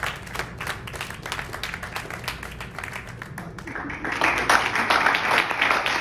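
Audience clapping, growing louder and denser about four seconds in.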